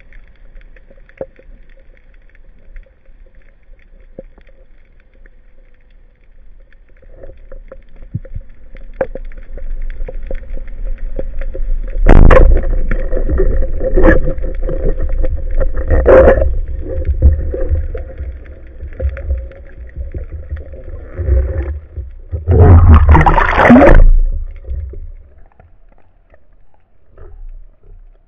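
Underwater sound on a spearfishing dive: a sudden loud crack about twelve seconds in, a speargun firing on a long shot that leaves the fish on the shaft, then rushing water noise with a few sharp knocks and a loud burst of rushing noise near the end.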